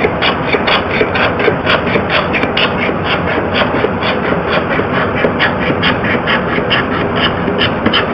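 Small hand-held scraper blade rasping back and forth along the inside corner of a wooden door panel, scraping off old paint, in quick short strokes about four or five a second.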